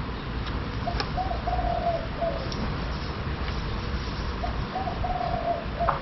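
A dove cooing: two short phrases of low, steady coos, one about a second in and another near the end, over a steady background hiss with a few faint clicks.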